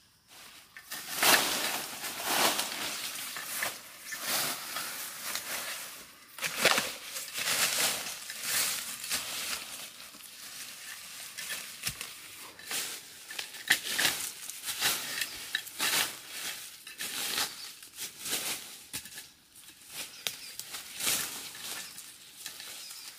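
Footsteps crunching over dry leaf litter while pushing through undergrowth, with leaves and branches rustling and brushing past. The sound is irregular, with sharp crackles mixed into the rustle.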